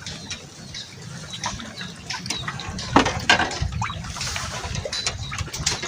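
Water splashing and sloshing, uneven, with a sudden loud splash about three seconds in.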